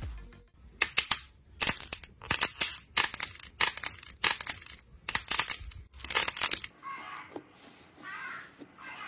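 Slime being squeezed and pressed by hand, giving a run of crisp crackling, popping squishes about one or two a second that stop about two-thirds of the way through.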